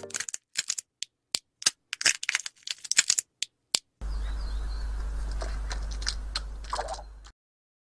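About four seconds of irregular sharp taps and cracks, roughly three or four a second with silent gaps between them. Then a steady low hum with hiss, a few faint high chirps and clicks, which cuts off suddenly near the end.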